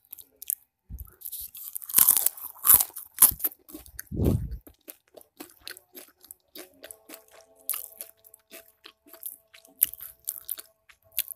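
Crispy fried wonton skin being bitten and chewed close to the microphone: a long run of sharp crunches, loudest around two to three seconds in.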